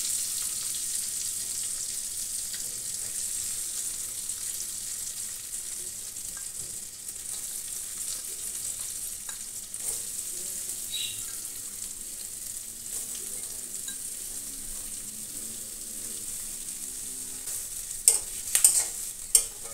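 Chopped onions sizzling in hot oil and butter in a kadai: a steady frying hiss that slowly eases, with a few sharp clicks near the end.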